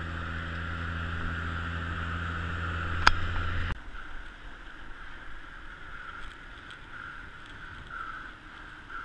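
Wind and rolling noise of a road bike riding at speed, with a steady low hum under it. A single sharp knock comes about three seconds in. A little under four seconds in the hum cuts off abruptly and the noise drops to a fainter, uneven wind rush.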